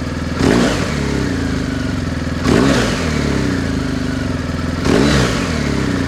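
BMW R1250GS Adventure's boxer-twin engine breathing through a Jekill & Hyde exhaust on a de-catted header, valve half open in dynamic mode. The engine idles and is blipped three times, each rev rising sharply and falling back to idle.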